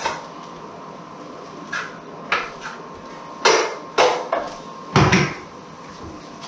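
Drywall knife scraping joint compound against the edge of a stainless-steel mud pan: a run of short metallic scrapes, with a heavier knock about five seconds in.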